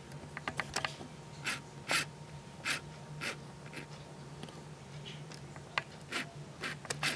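Handling noise: a scattered run of short scratchy rustles and light clicks as a hand turns a small metal mini-axe bottle opener, over a steady low hum.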